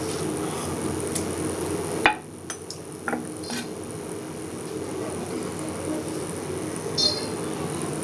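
Eating sounds from a meal of rice and curry: a few sharp clicks and a brief ringing clink of the plate or bowl, over a steady low hum.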